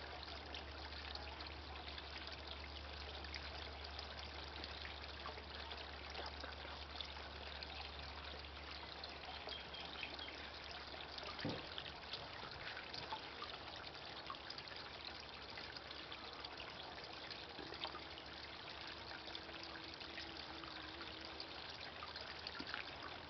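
Water trickling steadily as it spills from one concrete bowl of a cascading bowl fountain into the bowl below, with one brief knock about halfway through.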